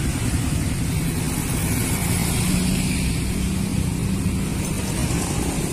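Steady roadside traffic noise: a low engine hum from motor vehicles, strongest in the middle.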